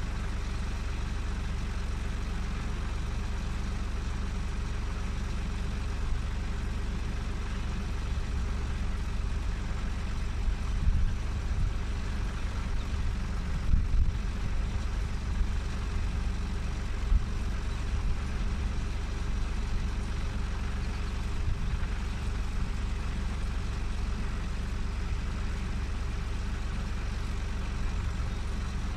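Ford 3600 tractor's three-cylinder engine idling steadily, parked with its logging winch on the back, with a few low thumps near the middle.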